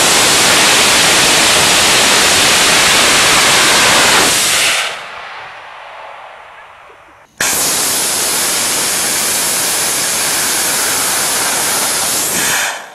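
Solid-fuel-type rocket motor static test firing: a steady, very loud rushing hiss of exhaust for about five seconds that tails off and fades away. About seven seconds in, the same loud rush starts again abruptly and runs about five seconds before cutting off.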